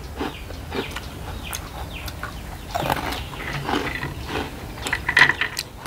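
Close-up eating sounds: a person chewing and smacking with the mouth, with irregular short wet and crunchy bursts.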